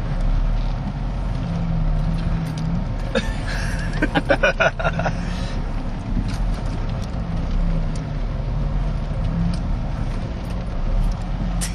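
Unimog engine running at low speed as the truck crawls over rocks, a steady low rumble with a faintly wavering drone. About four seconds in comes a brief run of rapid sharp sounds.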